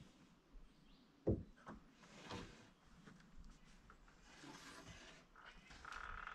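Lumber being handled: one sharp wooden knock about a second in, then lighter rubbing and scraping of wood. Near the end a rapid pulsed chirping starts.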